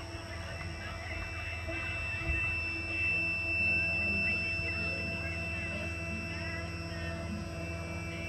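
Stepper motors of a home-built CNC router machine running with a steady whine of several fixed pitches over a low hum.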